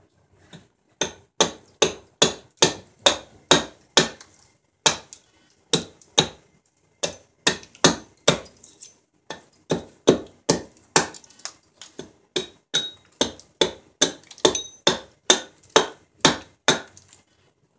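Small carving hatchet chopping into a silver birch blank resting on a wooden stump: a run of sharp strikes, about two to three a second, with a few short pauses, as the sides of a ladle blank are knocked down.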